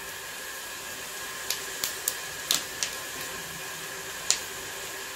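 Whole cinnamon, cloves and cardamom frying in hot oil in a pan: a steady sizzle with about six sharp pops scattered through it.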